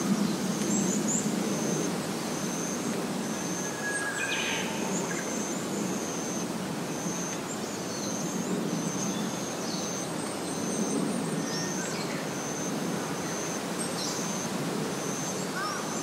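Outdoor ambience by a forest pond: a steady low rumble under a short high chirp repeating about one and a half times a second, with a few scattered bird calls, one about four seconds in.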